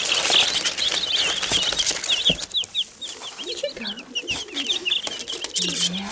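A flock of young Wyandotte bantam chicks peeping nonstop, many short high peeps that slide downward in pitch, over the rustle of cardboard and straw as a hand reaches in among them.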